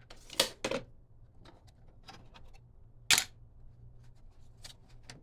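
Hand tools knocking and clicking on wood: two sharp knocks near the start, the loudest one about three seconds in, and lighter clicks between, over a low steady hum.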